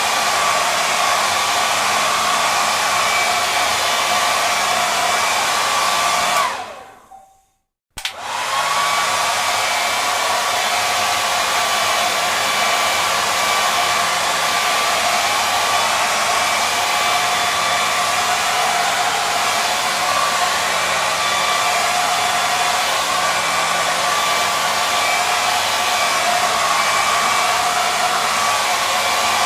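Hair dryer running steadily with a whirring whine. About six and a half seconds in its sound falls away, the whine gliding down, to silence; about a second and a half later it comes back on with a click and runs steadily again.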